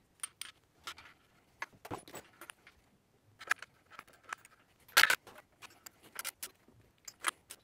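Irregular metallic clinks and short rattles of steel tools and parts as the flywheel's centre bolt and washer are fitted and tightened with a torque wrench.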